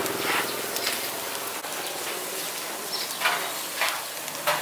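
Food sizzling steadily, with a few sharp clicks or pops near the end.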